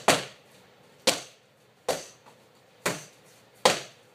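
A run of sharp smacks, five of them, about one a second and evenly spaced, each dying away quickly.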